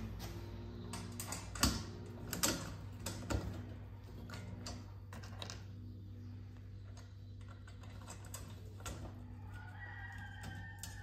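Small metal parts clicking and knocking as a grill rotisserie motor is fitted into the bracket of a steel egg-turner rack, with a few sharper knocks in the first few seconds and lighter clicks after. A steady low hum runs underneath, and a faint falling squeak comes near the end.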